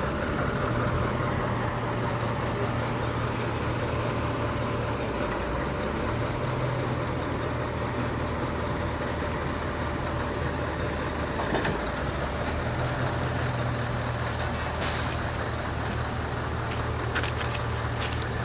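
Heavy diesel engine running with a low, steady rumble that swells and eases in steps, and a short hiss about fifteen seconds in.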